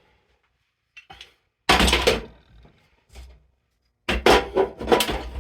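Hand tools being tossed into a toolbox: a loud clattering thunk about two seconds in, a smaller knock a second later, then a longer run of clattering near the end.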